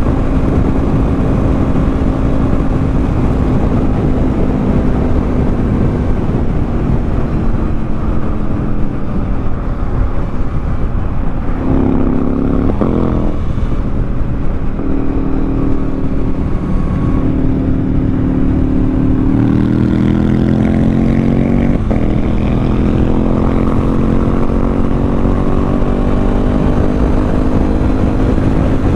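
2014 Yamaha MT-07's 689 cc parallel-twin engine pulling hard at highway speed, with heavy wind noise. The revs hold steady at first, break with a quick gear change about twelve seconds in, then climb from about twenty seconds in, with another shift near twenty-two seconds before climbing again.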